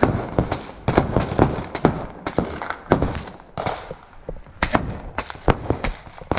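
Scattered gunfire in a firefight: irregular sharp cracks, several a second, some louder and closer than others, echoing briefly.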